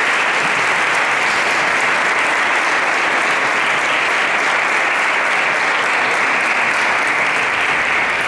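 Audience applauding, a steady, loud clapping that holds at one level.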